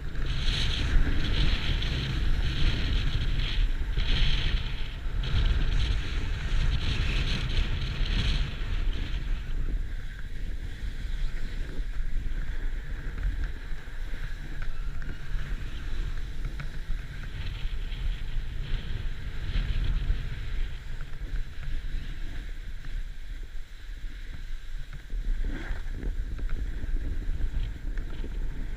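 Wind buffeting the microphone as a snowboard rides down a snow slope. For about the first eight seconds there are repeated bursts of hiss from the board scraping over the snow in turns, and after that the sound is quieter.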